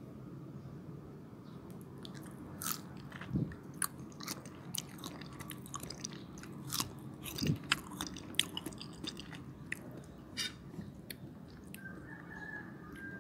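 Crisp crunching bites and chewing of a slice of raw young mango: a run of sharp, irregular crunches, loudest about three and a half and seven and a half seconds in.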